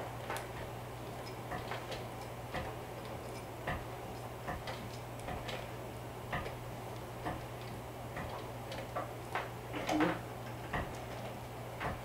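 Industrial sewing machine turned slowly by hand at the handwheel, each stitch giving a small click, roughly two a second at an uneven pace, over a steady low hum.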